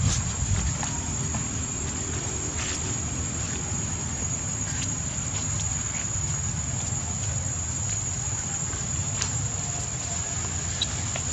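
Insects droning in one steady high tone over a low rumble, with scattered faint ticks and rustles.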